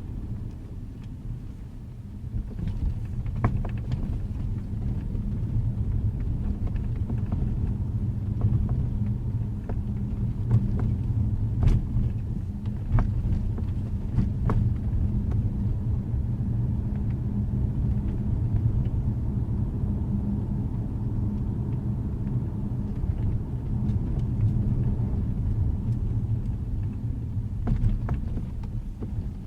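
2012 Jaguar XJ running with a steady low rumble, over which come scattered short, sharp pops and clicks, bunched in the first half and again near the end: the popping noise the owner still hears after a dealership repair.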